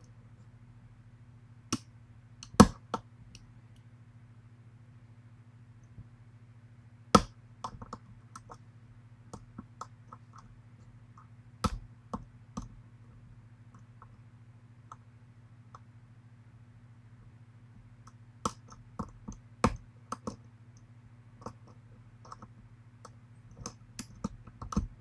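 Lock pick and tension wrench working the pins of a pin-tumbler challenge lock: scattered sharp metallic clicks and taps, a few louder ones several seconds apart, over a faint steady low hum.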